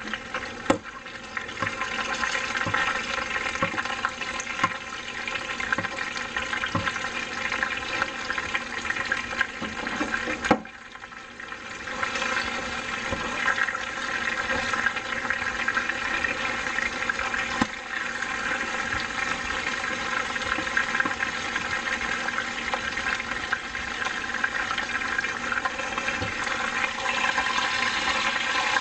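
Chicken thigh frying in shallow oil in a nonstick pan: a steady, crackling sizzle that drops briefly about ten seconds in, with a few sharp clicks of a fork against the pan.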